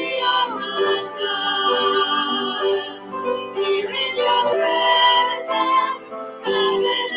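Female voices singing a slow worship song, accompanied by acoustic guitar and piano.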